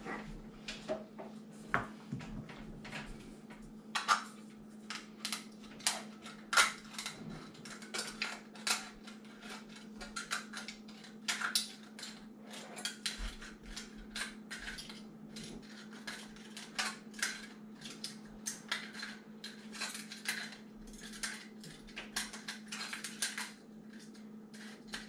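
Scissors cutting around the base of an empty aluminium drink can: an irregular run of sharp metallic snips and crinkles, about one to three a second.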